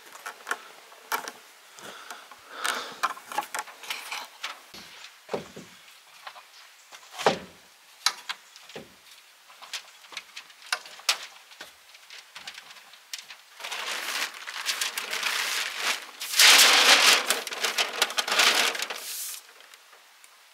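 Tyvek house wrap crinkling and rustling as it is handled and fastened on the wall, with scattered sharp taps and knocks. Near the end there is a louder, longer stretch of crackly rustling that lasts several seconds.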